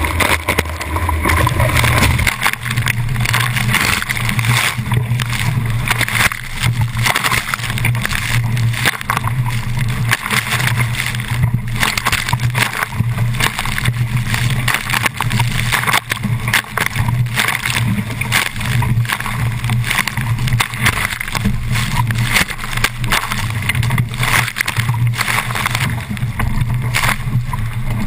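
Water rushing and splashing past a small sailboat's hull at speed. Heavy wind buffets the boat-mounted camera's microphone in low, uneven gusts.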